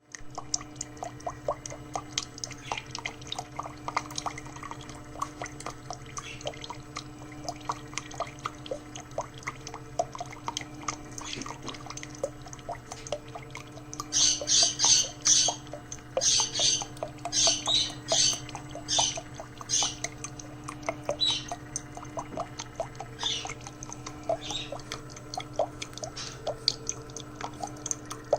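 Drip coffee maker brewing: water dripping and gurgling over a steady low hum, with bursts of hissing sputter from about halfway through.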